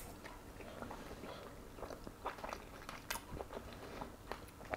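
A man chewing a mouthful of lamb hotpot with baked celeriac topping, with faint irregular mouth clicks.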